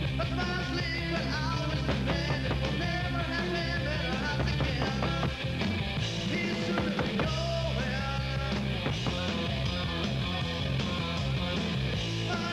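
Rock music with a singer over a steady bass line.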